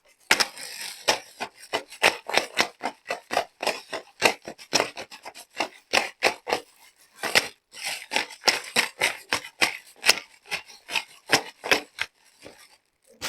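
Plastic packaging and small plastic toy pieces being handled and unwrapped: a quick run of sharp crinkles, clicks and rubbing, two or three a second, with a short pause about seven seconds in and a quieter stretch near the end.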